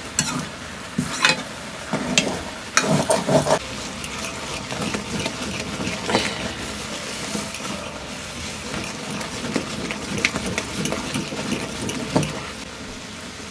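Metal ladle stirring and scraping stinging nettle greens in a metal kadai, clinking against the pan, with a run of louder clinks about three seconds in. The greens sizzle steadily underneath.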